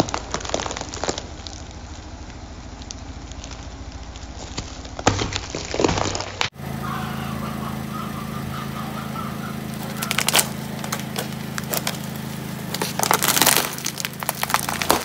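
Car tyre slowly crushing gac fruits, cracking and crunching about five to six seconds in. After a cut, over a steady low hum, the tyre crushes plastic cups of ring-shaped candy, with plastic crackling and crunching about ten seconds in and again near the end.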